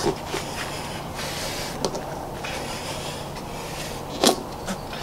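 Rubbing and rustling of a knobby motorcycle tire being pressed and handled while heavy reusable zip-tie straps (MotoZipps) squeeze its beads together, with a few sharp clicks, the loudest about four seconds in.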